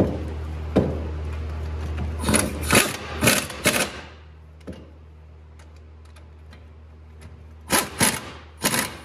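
Power wrench spinning the 18 mm U-bolt nuts down on a truck's rear axle in short bursts: four quick runs a few seconds in, then three more near the end. A steady low hum sits under the first few seconds.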